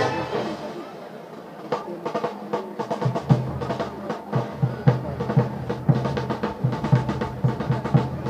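Brass band's drum section, bass drums and snare drums, beating a steady march rhythm of about two strokes a second that starts about two seconds in, after a loud final chord dies away.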